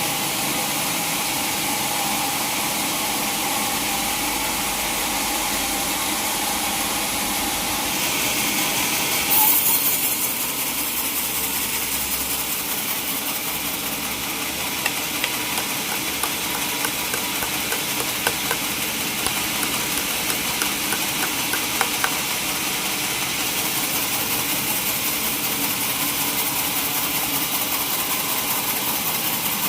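Sawmill saw running steadily with a high hiss, a brief louder burst about nine seconds in and scattered ticks in the middle stretch.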